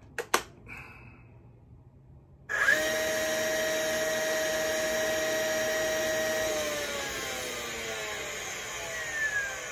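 DeWalt cordless nailer: a click as the battery snaps home, then the motor starts suddenly with a high-pitched whine. It holds steady for about four seconds, then winds down, falling in pitch, as the battery dies.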